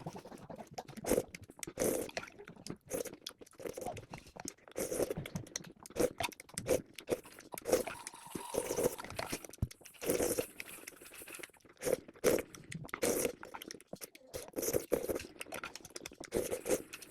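Close-miked eating: crunchy bites and chewing at an irregular pace, with crisp crunches and wet mouth sounds.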